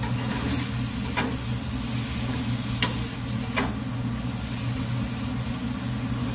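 Onion and tomato masala sizzling in a nonstick frying pan as it is stirred with a metal slotted spatula, with three sharp clicks of the spatula against the pan. A steady low hum runs underneath.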